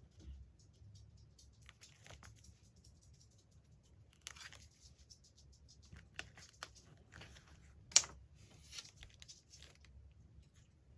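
Magazine paper being handled and torn: soft rustling and small taps, a tear about four seconds in, and one sharp snap about eight seconds in.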